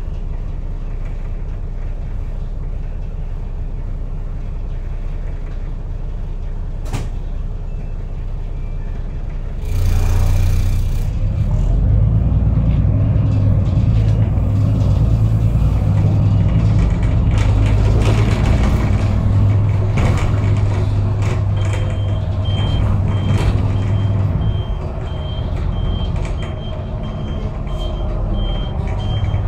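Inside a city bus: the engine rumbles steadily, then about ten seconds in there is a brief hiss of air and the engine grows louder as it works harder. From about two-thirds of the way through, a short high beep repeats about twice a second.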